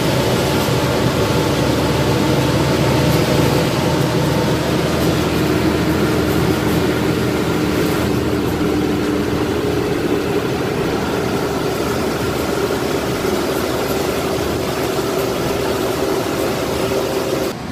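Lorry's diesel engine and road noise heard from inside the cab while driving at speed: a loud, steady drone.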